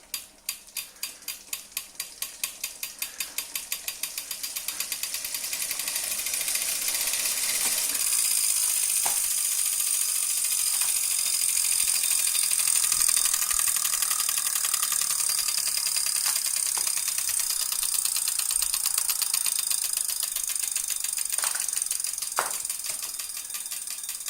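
Wahoo KICKR Core direct-drive smart trainer running with a loud clicking: about three clicks a second at first, speeding up into a fast, steady ratcheting as it spins up, easing slightly near the end. The clicking is a fault on a new unit, which the owner has sent for exchange.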